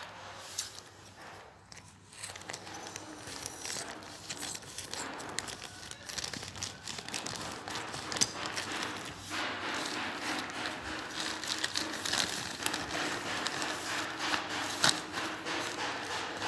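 Plastic courier mailer bag crinkling and crackling as it is torn open and handled by hand, with scattered sharp snaps of the plastic.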